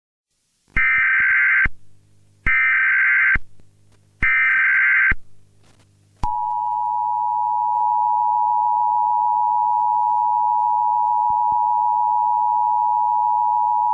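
Emergency Alert System SAME header: three short bursts of data tones about a second apart, each about a second long. About six seconds in the steady two-tone EAS attention signal starts and holds.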